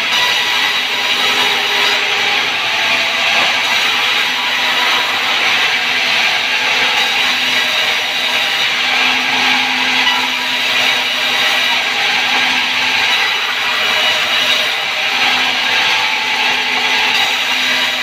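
Sawmill band saw ripping a wooden plank lengthwise as it is fed through the blade: a loud, steady cutting noise of the blade in the wood over the machine's low hum.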